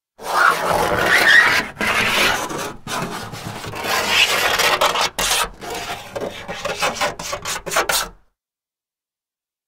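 A key scratched along a car's painted body, a grating scrape lasting about eight seconds with brief breaks. It turns into a quick run of short strokes near the end and then cuts off.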